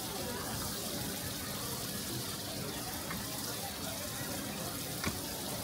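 Steady sizzle of food frying on a hot griddle, with a few sharp clicks.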